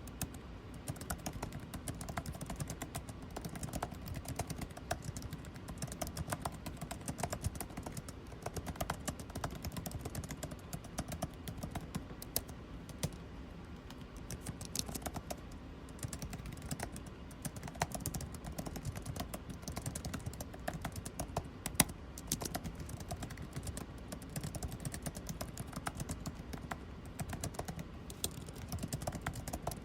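Computer keyboard typing: rapid, irregular key clicks that keep going, over a steady low air-conditioning hum.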